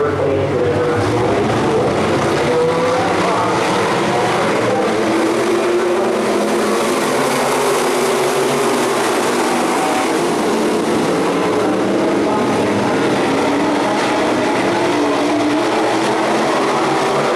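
A field of sport modified dirt-track cars racing in a pack, their V8 engines running hard together in one continuous loud drone. The pitch swells and falls as the pack comes around the oval.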